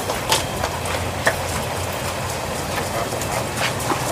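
Cleaver knocking on a wooden chopping block as fried pork is chopped, a few separate sharp chops spread through, over a steady low rumble.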